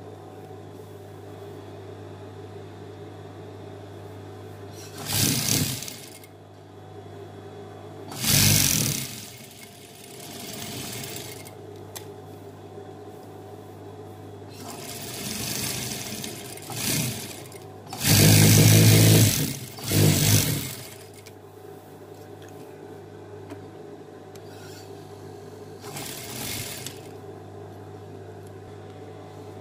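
Industrial lockstitch sewing machine stitching in about seven short runs of half a second to a second and a half each. The longest and loudest run comes about two-thirds of the way in, and a steady low hum carries on between the runs.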